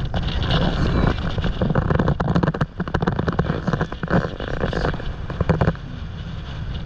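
Strong gusty wind buffeting the microphone: a loud low rumble with irregular crackling pops, which eases off about six seconds in.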